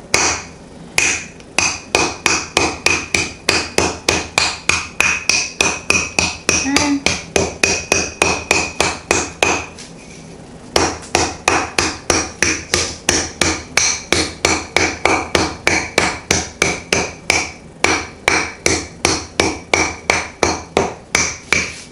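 Wooden rolling pin pounding peppermint candies in a plastic zip-lock bag on a granite countertop, crushing them, at about three blows a second with a brief pause about ten seconds in.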